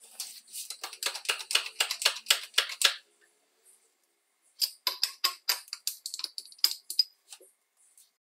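Two runs of quick, sharp metallic clicks, about four or five a second. The first lasts about three seconds and the second starts about four and a half seconds in. They come from a pinion gear being pressed onto a small DC drill motor's shaft.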